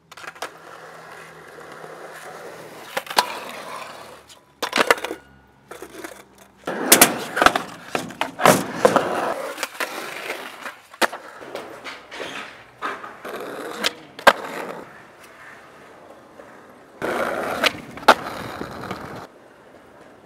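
Skateboard wheels rolling on concrete, broken by a string of sharp clacks as the board pops off the ground and lands.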